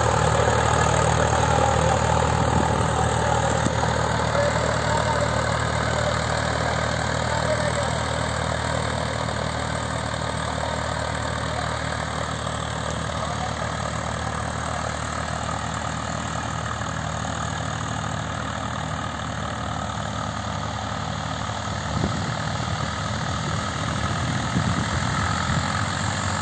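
Farm tractor diesel engine running steadily as it pulls a disc harrow through tilled soil. It fades somewhat over the first ten seconds as the tractor moves off, with a brief knock a little over twenty seconds in.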